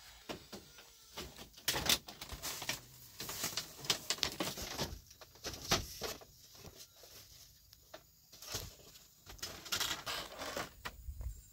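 Woven bamboo wall panel rattling and knocking against the bamboo frame as it is handled: an irregular run of sharp clicks and clatters with short pauses.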